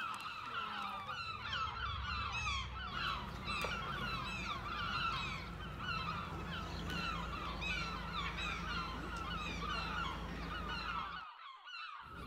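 A flock of birds calling continuously, many short overlapping calls, over a steady low hum. It all cuts off about a second before the end.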